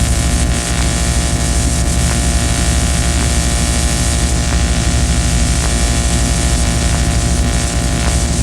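Noise music: a loud, steady wall of hiss and whirring over a low rumble that pulses rapidly, with no break or change.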